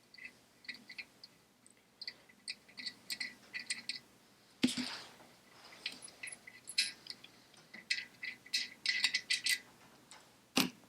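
Hand tools and small steel parts clicking and clinking on a Citroën 2CV cylinder head as a rocker arm fixing is undone, with two louder knocks, one about halfway through and one near the end.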